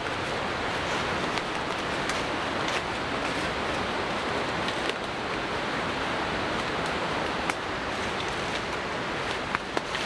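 Mountain creek water rushing and tumbling over rocks in a steady, even rush, with a few faint clicks now and then.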